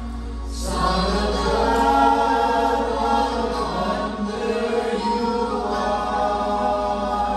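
A group of men singing together without instruments, holding long notes.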